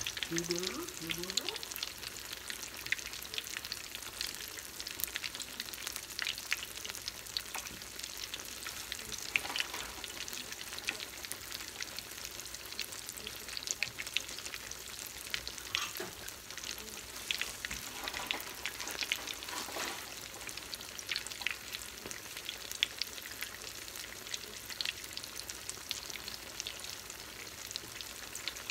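Panko-coated corn dogs deep-frying in hot vegetable oil in a cast iron skillet: a steady sizzle with scattered crackles and pops. A sharp click at the very start.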